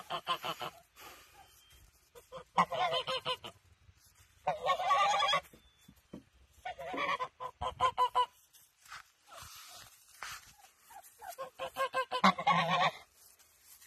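Domestic geese, a Toulouse gander among them, honking in about five loud bouts of rapid calls. The longest bout comes near the middle.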